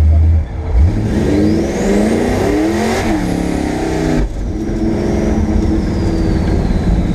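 Twin-turbocharged 393 small-block V8 of a 1965 Ford Mustang, heard from inside the cabin, pulling hard under boost. The revs climb with a rising turbo whistle and drop back about three seconds in. Just after four seconds the heavy noise cuts off sharply, leaving the engine cruising steadily with a high whine that slowly falls.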